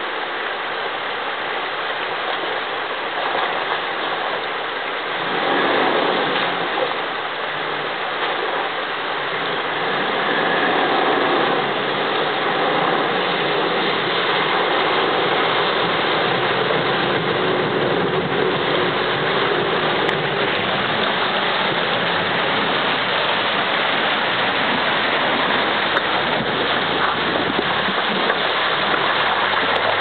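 Fast-flowing river water rushing steadily, with a four-wheel drive's engine running as it drives through the high water, its bow wave splashing. The water noise gets louder about ten seconds in.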